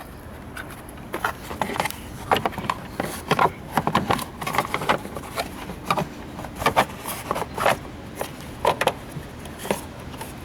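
Irregular clicks, knocks and scrapes of hard plastic and metal parts being handled and fitted into place around a car battery, several sharp clacks a second at times.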